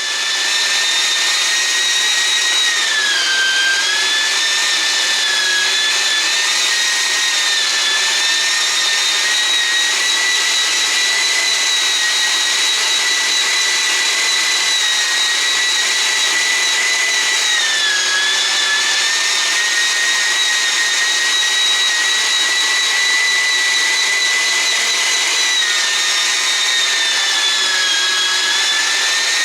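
Keenstar JSMG203 electric meat grinder running steadily while grinding beef, a loud, high motor whine. The pitch dips briefly three times, near the start, in the middle and near the end.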